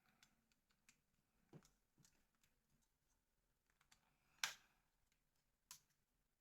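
Faint, scattered clicks and taps of small plastic phone parts being handled and fitted together, with one sharper click a little past the middle and another near the end.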